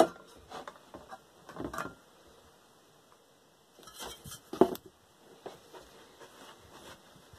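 Scattered clicks and clinks as the ICOM IC-2100H mobile radio's screws and metal top cover are taken off by hand, with a sharp click at the start and the loudest knock about four and a half seconds in.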